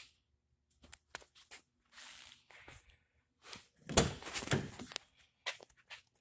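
A few light steps and small clicks, then the door of a 1994 Nissan Skyline R33 being unlatched and swung open about four seconds in, with a thunk that is the loudest sound.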